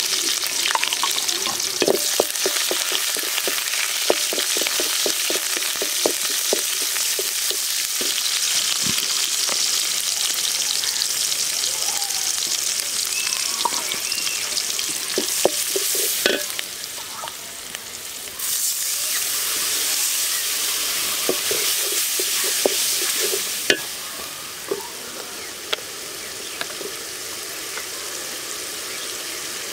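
Sliced onions and spices sizzling in hot oil in a metal pot, with a wooden spatula stirring and knocking against the pot in short clicks. The sizzle eases later on, after the chilli powder is stirred in.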